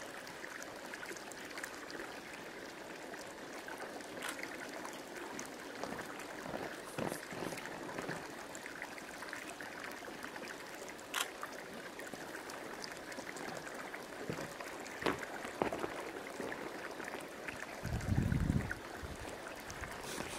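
Steady rushing and trickling of hot-spring water from a steaming pool, with a few sharp clicks scattered through it. A short low rumble comes near the end.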